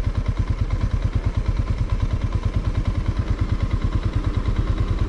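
Motorcycle engine running steadily at low revs while being ridden, its exhaust beating in an even pulse of about ten beats a second.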